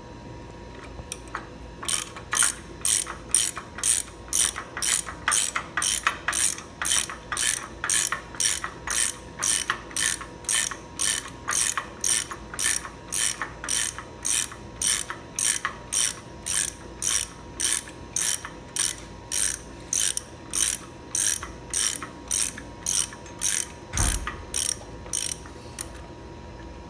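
A hand ratchet worked back and forth in steady strokes, each a quick run of pawl clicks, about two a second for over twenty seconds. A single low thump sounds near the end.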